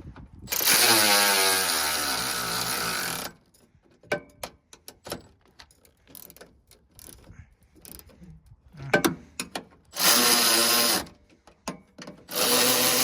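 Long-necked cordless power ratchet running bolts in, in three runs. The motor's pitch drops steadily through the first run as the bolt draws tight, and there are light clicks and handling knocks between the runs.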